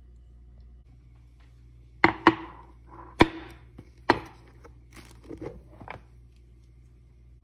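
Blue plastic lid being pried off a glass food storage container: four sharp snaps, then a few softer clicks and knocks as the lid comes free.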